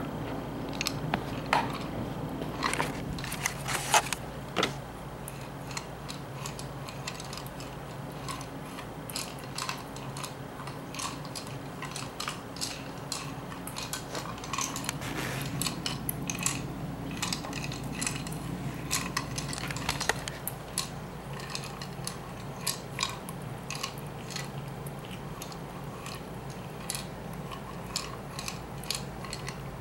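Plastic treat-dispensing ball wobbling and knocking on a tile floor as a kitten pushes it, dry treats rattling inside, heard as irregular small clicks and clatters. A low steady hum runs underneath.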